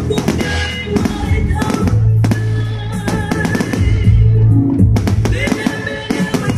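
Music playing with a steady bass line, with fireworks going off over it: many sharp bangs and crackles through the music.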